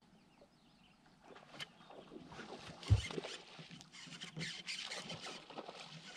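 Hookset and fight of a smallmouth bass on a baitcasting rod from an aluminium boat. A single hard knock about three seconds in, the angler's weight landing on the deck as he sets the hook, is the loudest sound. Around it runs a stretch of irregular scratchy clicking and hiss as the fish is played.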